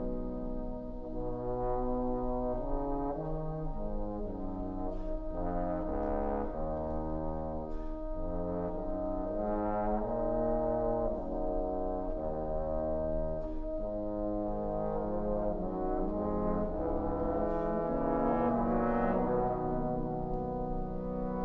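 Trombone choir playing slow, sustained chords, the harmony moving about once a second.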